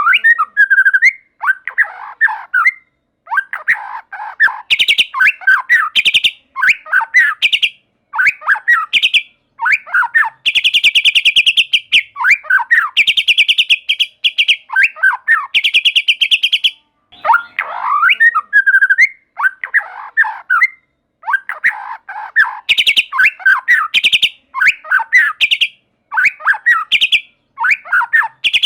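White-rumped shama (murai batu) singing loudly in phrases with short pauses between, mixing varied whistled notes with fast, even rattling trills; one long rattle starts about ten seconds in and runs for several seconds.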